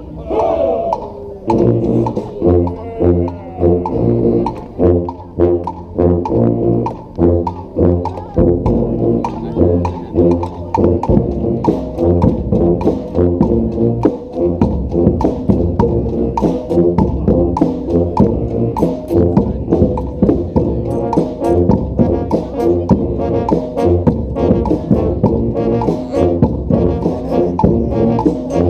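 Brass street band playing an up-tempo tune: horns and low brass in short, rhythmic chords over a stepping bass line and percussion, opening with a downward slide in the horns.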